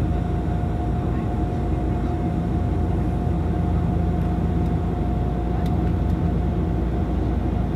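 Cabin drone of a Bombardier Q400 (Dash 8-400) in flight: its turboprop engines and propellers give a steady low hum with a constant thin whine above it, heard from inside the passenger cabin.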